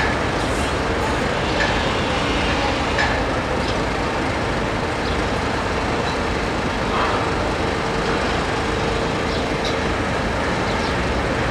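Steady street traffic noise with no distinct events, and a faint hum held for a few seconds in the middle.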